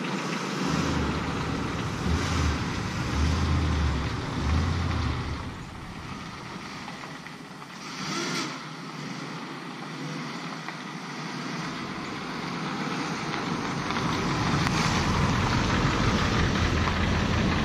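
A 2005 Dodge Ram 1500's 4.7-litre V8 running, with wind buffeting the microphone in the first few seconds. The engine grows louder toward the end as the truck pulls out toward the microphone.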